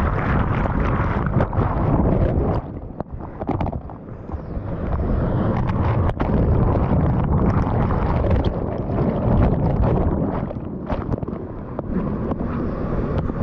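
Whitewater rushing and splashing against a kayak hull close to the microphone, with water buffeting the mic and a few sharp knocks. The sound drops briefly about three seconds in, then comes back full.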